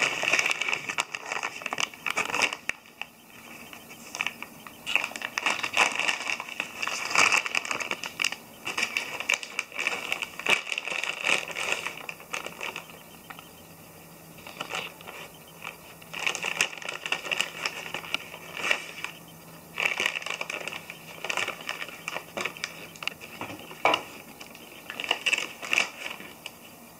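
A foil-lined snack bag crinkling and rustling in irregular bursts as a dog pushes its muzzle inside and shoves the bag about, with short quiet gaps between bursts.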